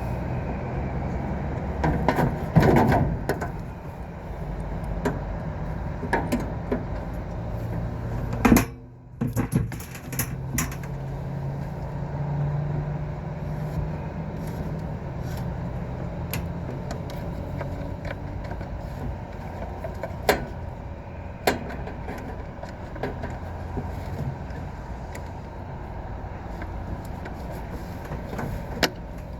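Old Temperzone air-conditioning unit running under test: a steady mechanical hum with scattered clicks and knocks, and a brief dip about eight and a half seconds in. The fan is noisy, which the technician says needs replacing.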